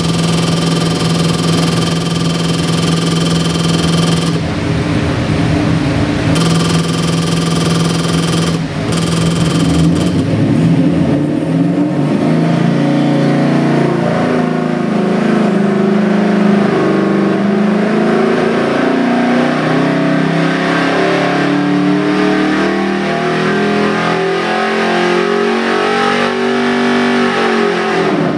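500 cubic inch big block Chrysler V8 stroker engine on an engine dynamometer. It idles for about ten seconds, then pulls steadily under load from idle up to about 5,300 rpm in a full-throttle sweep test. It is let off right at the end.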